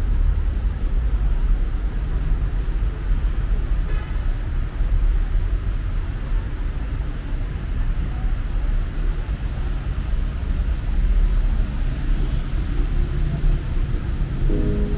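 Steady city street traffic noise: a low rumble of passing cars and buses.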